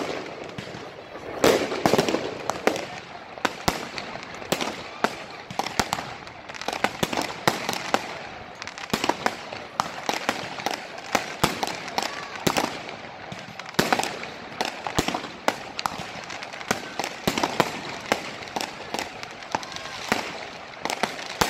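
Many fireworks going off: a dense, irregular run of sharp bangs and crackles, with the loudest booms about two seconds in.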